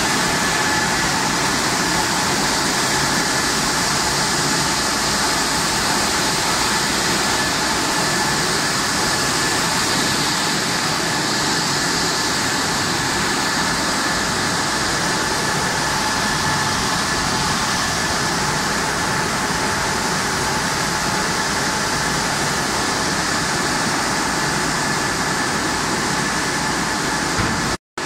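Automatic french fries processing line running: stainless mesh-belt conveyors and their motors give a steady, even rushing noise with a constant whine on top. The sound cuts out briefly just before the end.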